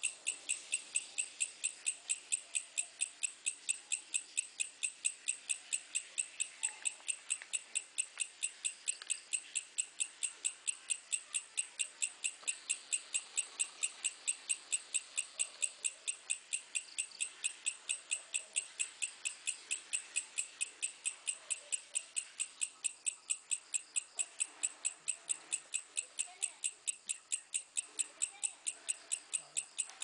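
An insect chirping steadily at night: short, high chirps at an even pace of about three a second.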